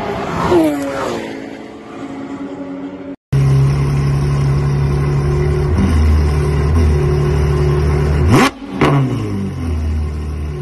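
A car passing at speed on a race circuit, its engine note dropping sharply in pitch as it goes by. Then a Ferrari idling at a standstill with a deep, steady engine note, blipped twice in quick succession near the end, each rev climbing and falling away.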